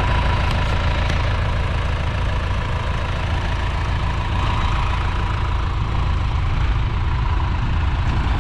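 Tractor engine idling steadily, a continuous low rumble.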